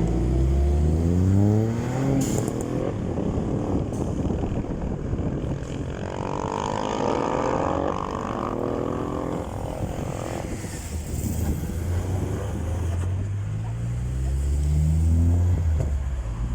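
Cars accelerating hard one after another, their engine notes climbing in pitch. One pull comes at the start, a higher-pitched engine revs up in the middle, and another car pulls away near the end.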